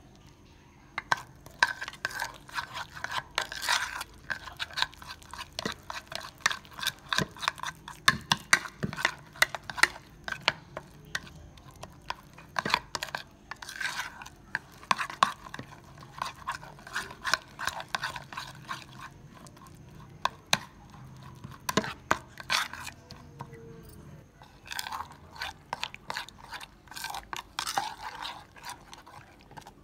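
A metal spoon stirring and mashing thick, wet spice paste in a bowl, with rapid irregular clicks and scrapes against the bowl. There are a couple of short pauses.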